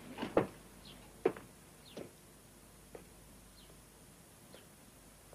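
Boot footsteps on stone walking away, about one step a second, each fainter until they fade out. Faint bird chirps now and then.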